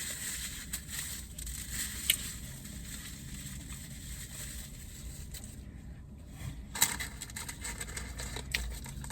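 Quiet eating sounds: crunching and rustling of food and wrappers, with a few sharp clicks about 2 and 7 seconds in, over a low steady hum.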